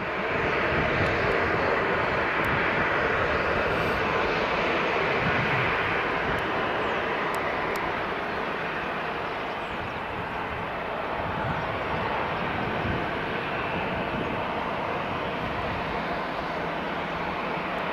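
A jet aircraft's engines, heard as a steady, loud rush that dips slightly about ten seconds in and then holds.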